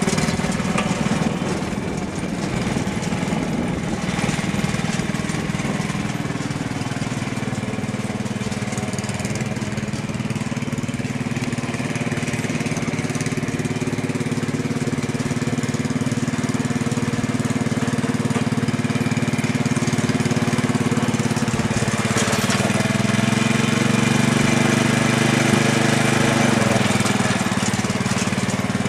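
Speedex garden tractor's small gasoline engine running steadily as the tractor is driven, with small shifts in pitch.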